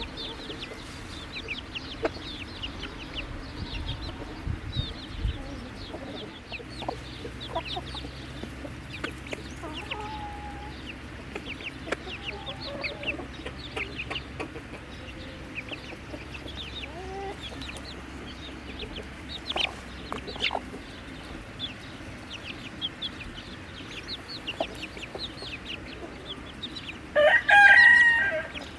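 A flock of chickens clucking and calling with many short, high notes, and a rooster crowing loudly once near the end.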